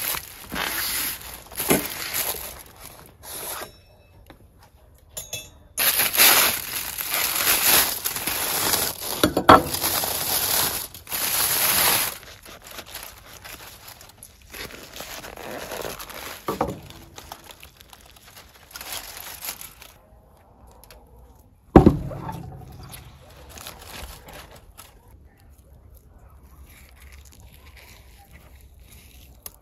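Aluminium foil crinkling and tearing in loud bursts as it is pulled off a large roasted joint, followed by quieter rustling and scraping as the paper underneath is cut with a knife. A single sharp knock comes about two-thirds of the way through.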